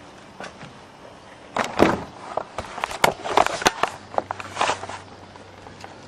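Handling noise: a run of clicks, light knocks and rustles from about a second and a half in until about five seconds in.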